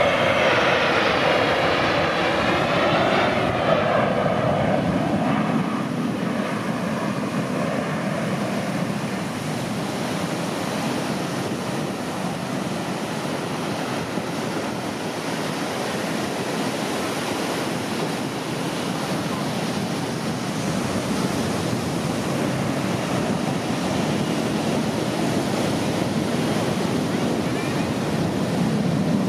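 Jet noise from U.S. Air Force Thunderbirds F-16 fighters in flight. A whine sweeps in pitch over a rush of jet noise for the first few seconds, then a steady broad rumble eases off and swells again near the end.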